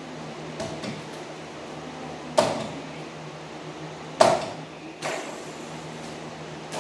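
A mini basketball knocking against a wall-mounted mini hoop and bouncing off the floor: three sharp knocks, about two and a half, four and five seconds in, with smaller taps near the start and end. A low steady hum runs underneath.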